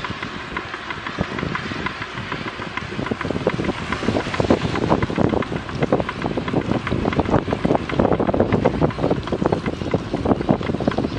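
Wind buffeting the microphone of a bicycle-mounted action camera, with tyre noise on a wet road and a constant rapid rattle of knocks from the ride, growing louder from about four seconds in as the bike speeds up.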